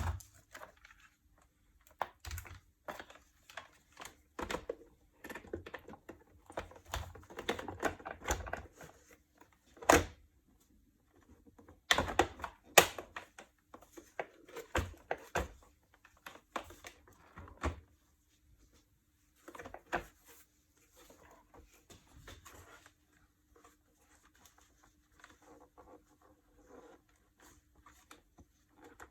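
Irregular clicks, taps and knocks of hands handling small parts and tools, the loudest knocks about ten and thirteen seconds in and sparser in the last third, over a faint steady hum.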